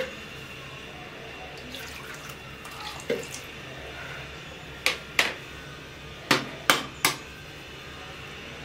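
Water poured from a jug into a well of flour, then five sharp clinks and knocks of kitchenware being handled: two close together, then three more about a second later.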